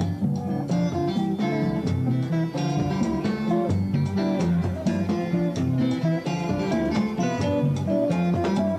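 Congolese rumba band playing live: plucked guitar lines over bass and a steady drum beat.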